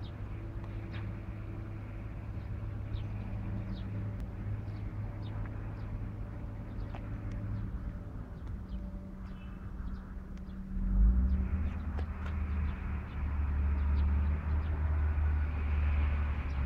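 Diesel engine of a Beiben tractor truck idling, a steady low hum that grows louder about eleven seconds in.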